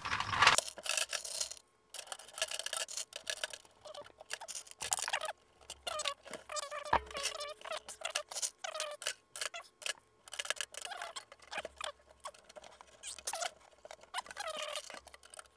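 Small plastic toy figures clicking and rattling against one another and a metal tin as a hand scoops them up and drops them into the bin of a miniature claw machine: an uneven run of light clicks and clatters.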